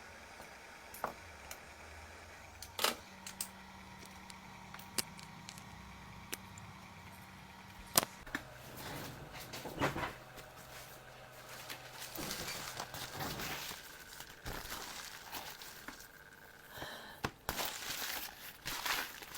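Scattered sharp clicks and taps of small tools and parts being handled in a smartphone screen repair, turning to denser scraping and rustling about halfway through.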